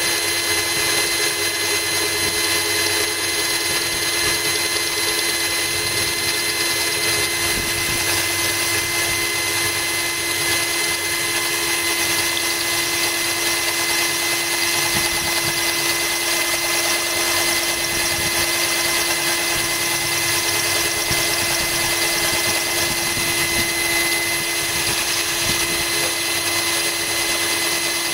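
Cordless drill running steadily with an even whine, its hollow bit grinding a hole into a glass bottle under a trickle of cooling water.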